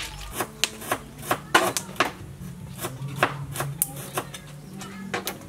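Freshwater snails clattering against each other and the sides of a plastic basket as it is shaken: a run of sharp, irregular clicks, several a second.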